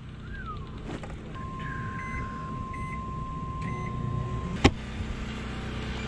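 Microwave oven in use: three short keypad beeps over a steady hum and a thin high tone, then a sharp click a little past halfway, as the door is opened, at which point the tone stops.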